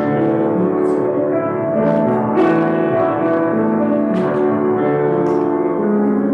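Instrumental music: slow, sustained chords that change about once a second, with a few faint clicks over it.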